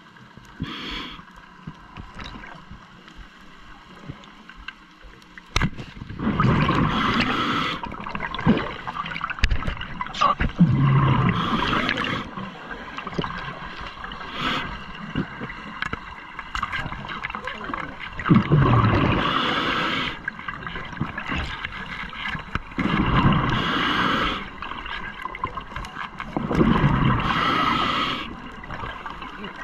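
A scuba diver breathing underwater through a regulator: five exhalations, each a gurgling burst of bubbles lasting about two seconds, coming every four to five seconds from about six seconds in, with quieter inhales between.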